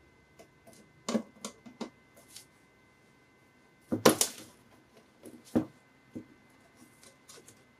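Scattered clicks and knocks of a computer power supply's parts being handled and unscrewed during a teardown, with a louder cluster of knocks about four seconds in and another sharp knock a moment later.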